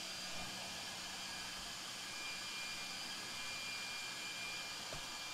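Shop vacuum running steadily for dust collection: an even whooshing drone with a faint steady hum in it, and a light tap near the end.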